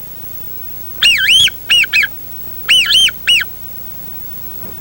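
Coca-Cola bottle cap blown as a whistle to imitate a wigeon's call: two groups of three short whistled notes, each note rising and falling in pitch, the groups about a second and a half apart.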